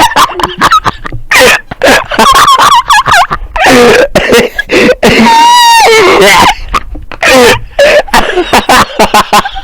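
A man's loud, exaggerated hiccups in a rapid string of short yelps, close on the microphone. About five seconds in, a long wavering wail falls away at its end.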